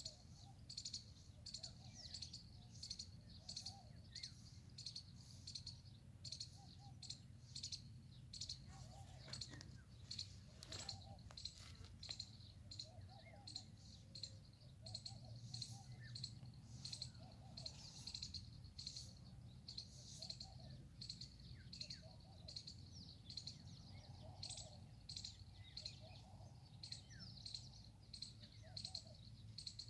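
Faint outdoor chorus of chirping insects and birds: a steady run of short high chirps, about two a second, with scattered lower calls and a low hum beneath.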